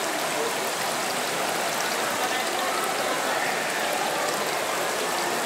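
Steady rush of flowing water, with indistinct voices murmuring underneath.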